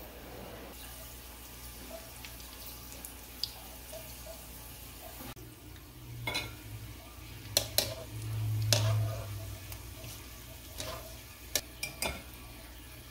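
Pumpkin sesame balls frying in a pan of hot oil: a steady sizzle, with a few sharp clicks and taps in the second half.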